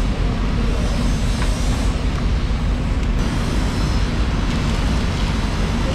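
Steady low machine hum and rumble, unbroken throughout.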